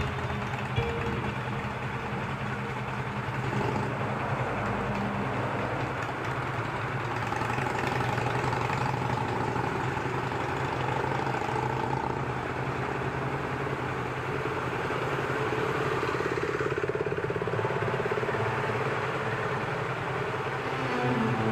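Motorcycle engine idling steadily, with other motorcycles running in the background.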